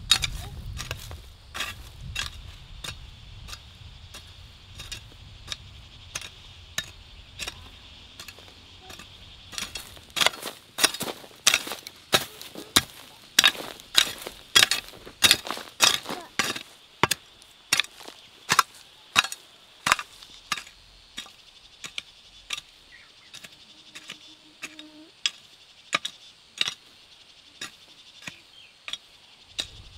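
Hand hoe blade chopping into the soil in quick repeated strokes, about two a second, loudest through the middle stretch. A steady high-pitched hum runs behind.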